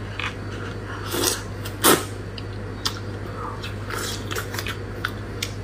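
Close-miked eating sounds: sauce-soaked strips of spicy eggplant lifted and drawn into the mouth, with scattered short wet clicks and smacks.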